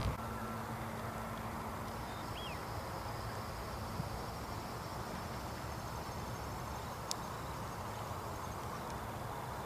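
Steady outdoor background noise with a faint steady hum underneath and a single short bird chirp about two and a half seconds in.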